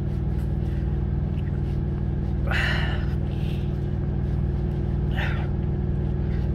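Steady low hum of an idling semi-truck diesel engine, heard inside the sleeper cab. Over it come a few short rushing sounds of hands rubbing over the face and hair, the loudest about two and a half seconds in and another about five seconds in.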